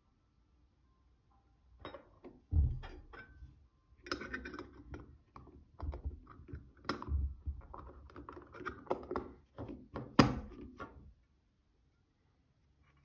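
Small silver powder box being handled and set against a tabletop: a series of metal clicks and light knocks over several seconds, with sharper knocks about two and a half, seven and ten seconds in.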